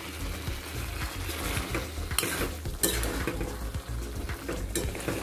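A spatula stirs thick jackfruit curry in a metal wok on the stove, scraping and knocking against the pan a few times over a faint sizzle.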